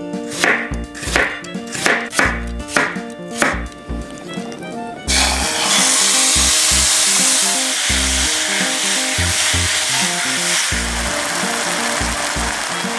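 Marinated pork slices hitting a hot frying pan: a loud sizzle starts suddenly about five seconds in and holds steady as the meat is stir-fried over high heat. Before it there are about seven short sounds, and light background music runs throughout.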